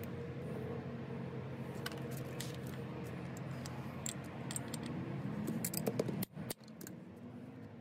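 Light metallic clinks and taps of hands and a screwdriver working small steel parts in a vintage electric drill's metal gear housing held in a bench vise, in scattered clusters, loudest about six seconds in, over a steady low hum.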